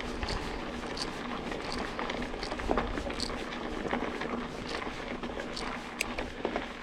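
Mountain bike riding over a wet trail: steady tyre and ride noise with scattered small clicks and rattles.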